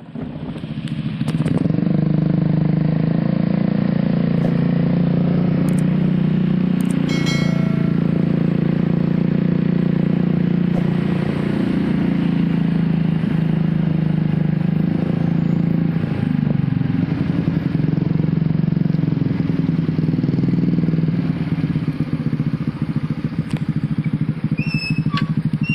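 Motorcycle engine running steadily, its pitch drifting up and down slightly.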